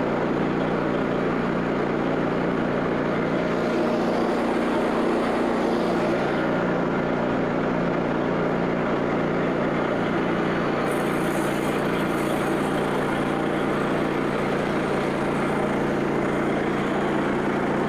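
Frontier OS27 portable bandsaw mill's gasoline engine running steadily at throttle, driving the band blade. A faint high hiss comes in briefly about eleven seconds in.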